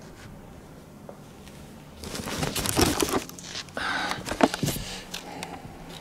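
Rustling and crinkling with several sharp clicks, from about two seconds in to about five seconds in: clothing and camera being handled and moved.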